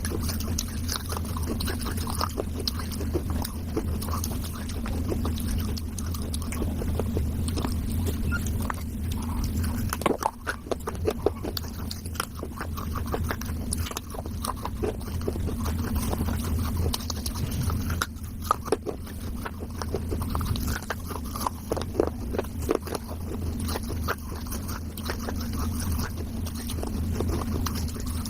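Close-miked chewing and crunching of wet clay from a clay diya, many short crackly bites and grinding chews in an irregular run, over a steady low hum.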